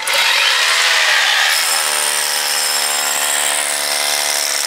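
Electric drill boring a long bit into an old brick wall, running steadily.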